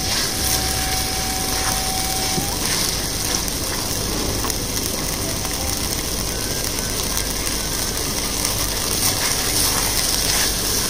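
Ground spice paste sizzling steadily in hot oil in a wok while a wooden spatula stirs and scrapes it; the paste is being sautéed until cooked and fragrant.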